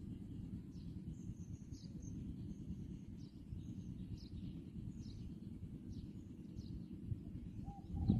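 Steady low rumble of wind on the microphone in an open rice field, with faint, short, high bird chirps repeating every half second or so.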